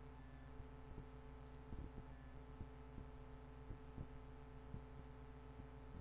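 Near silence: a low steady electrical hum with faint, irregularly spaced soft ticks.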